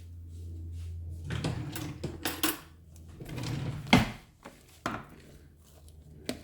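A spoon mixing chopped vegetables in a bowl: scraping and clinks against the bowl, with a sharper knock about four seconds in. A low hum stops after about a second.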